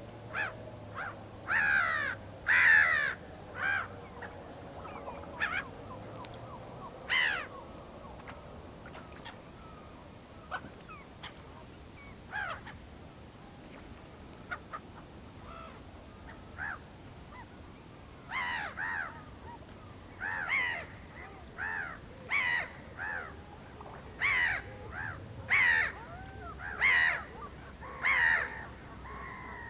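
Large birds giving loud, harsh calls one after another: a cluster in the first few seconds, scattered calls in the middle, and a dense run of calls from about two-thirds of the way through.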